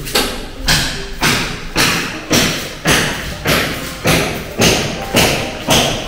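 Footsteps on tiled floor and stairs at a steady walking pace, about two steps a second, each a sharp slap.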